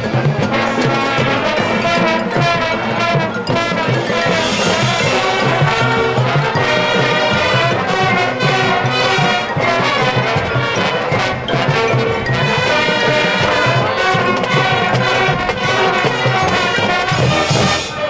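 Marching band playing: a full brass section holding chords and melody over the drum line and front-ensemble percussion.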